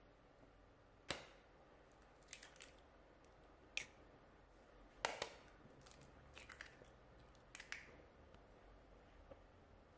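Eggs being cracked open: a series of about six short, sharp taps and shell cracks, some in quick pairs.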